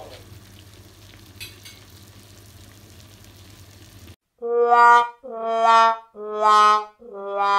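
A covered pan of mussels in creamy sauce simmering faintly with a soft sizzle. About four seconds in, a loud descending four-note brass jingle plays, the last note held longest, in the style of a sad-trombone sting.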